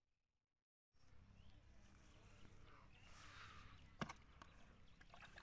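About a second of dead silence, then faint outdoor ambience with a single sharp knock about four seconds in.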